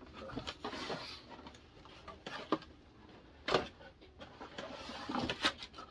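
Cardboard rustling and scraping as a boxed toy figure is pulled out of a cardboard shipping box, with a few sharp taps of cardboard on cardboard, the loudest about three and a half seconds in.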